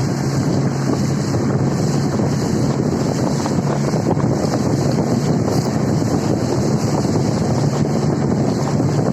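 Waterfall's water rushing steadily.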